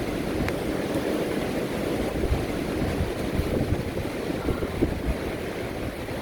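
Wind buffeting the microphone: a steady, gusting low rumble, with a faint click about half a second in.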